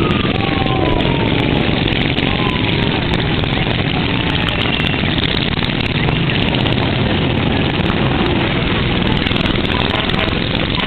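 Several small-engine go-karts running together as they drive past in a column, a loud, steady buzz of engines with a few falling pitch changes near the start as throttles ease off.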